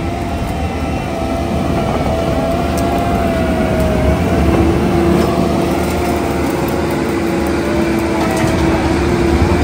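Bobcat T86 loader running under load, its hydraulic rotor-head grinding attachment chewing brush stumps and roots into the soil. A steady whine runs over the engine noise, and a second, lower whine joins about halfway through.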